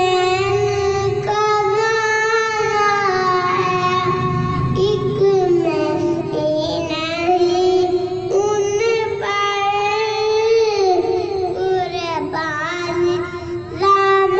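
A boy singing a naat unaccompanied into a handheld microphone, in long held notes with wavering, ornamented turns, in phrases a few seconds long.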